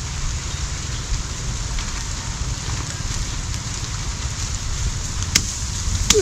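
Steady rain falling on bamboo leaves, with a low rumble underneath and a single sharp tick about five seconds in.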